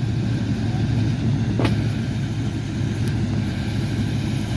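Sherman tank engine running steadily at idle, a low rumble, with a single short click about a second and a half in.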